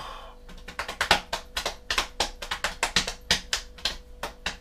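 Hands slapping a belly like a drum in a quick rhythm, about four or five sharp slaps a second, over a faint steady hum.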